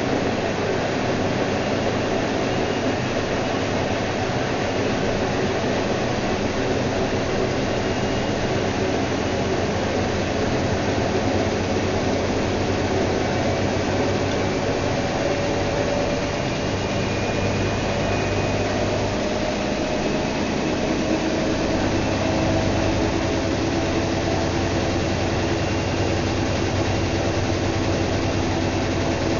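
Whirlpool washing machine running, a loud steady whirring with a faint motor whine that slowly drifts in pitch.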